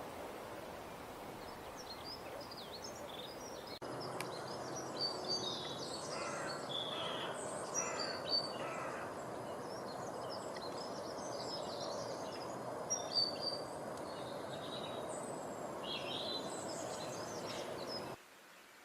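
Several birds chirping and singing in quick overlapping calls over a steady background rush of outdoor noise. The whole sound steps up abruptly about four seconds in and cuts off suddenly near the end, as at an edit.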